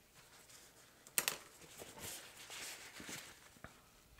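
Faint handling sounds: a sharp click about a second in, then soft rustling of a cloth and gloved hands pressing a decal onto a small diecast car body, with a few light clicks.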